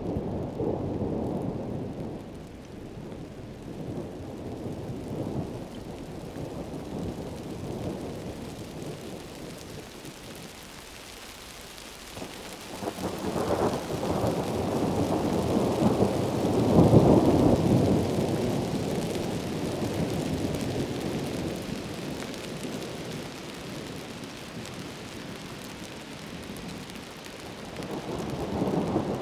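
Heavy rain falling in a tropical forest as a steady hiss, with rolling thunder underneath. A long thunder roll builds about halfway through, peaks a few seconds later, then fades.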